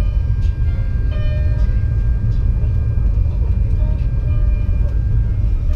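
Ride-on miniature train, a scale model of the Yufuin no Mori 72 series, running slowly along its narrow-gauge track up to a platform: a steady low rumble of the car on the rails.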